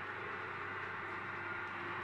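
H0-scale model locomotive running along the track as it approaches: a steady rolling hiss of wheels on rails with a faint motor hum.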